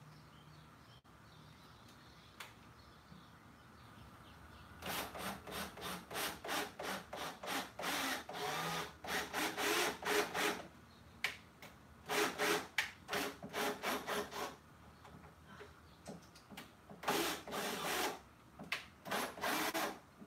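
Wood being sawn by hand: three runs of quick back-and-forth strokes, about three a second. The first run starts about five seconds in, and there are short pauses between the runs.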